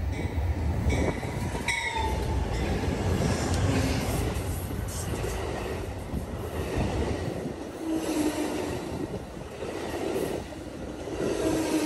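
An Amtrak passenger train passing close by: a heavy diesel-locomotive rumble for the first several seconds, then Superliner bilevel cars rolling past with steel wheels running on the rails. Short wheel squeals come about a second in, around eight seconds in and again near the end.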